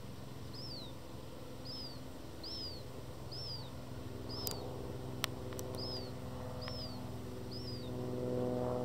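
Black-headed gull fledgling begging: a thin, high call that slurs downward, repeated about once a second, the young gull's demand to be fed. A low steady hum sits underneath and swells slightly near the end, and a couple of sharp clicks come midway.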